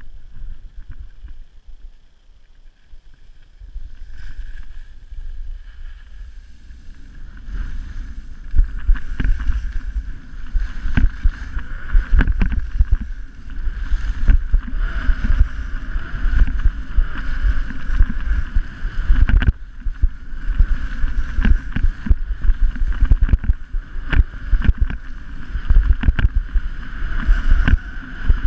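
Skis sliding and scraping over snow on a downhill run, with a low rumble of wind on the camera's microphone and frequent short knocks. It grows louder about four seconds in and again near eight seconds.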